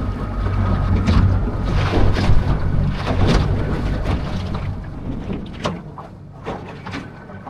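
Wind rumbling on the microphone aboard a small aluminium boat on the water, with several sharp knocks. It eases off over the last few seconds.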